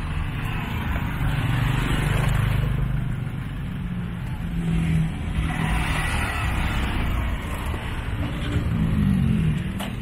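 Street traffic: motor vehicle engines running and passing close by, with one engine rising in pitch as it speeds up near the end.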